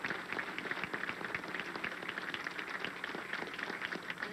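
Audience applauding: a dense patter of many hands clapping.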